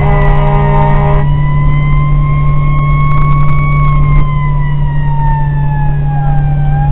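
Fire engine siren wailing in a slow rise and fall, over the steady drone of the truck heard from inside the cab. A horn blast cuts off about a second in.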